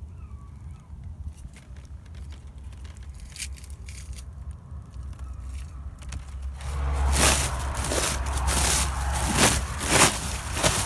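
Dry, papery shell of an old wasp nest crackling and scraping as it is pushed and brushed right against the microphone, with a low rumble underneath. Scattered faint clicks at first; the crackling and scraping grow much louder about two-thirds of the way through.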